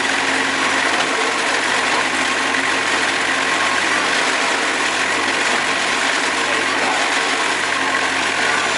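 Portable bandsaw sawmill's engine running steadily with no change in speed, the saw head raised and not cutting.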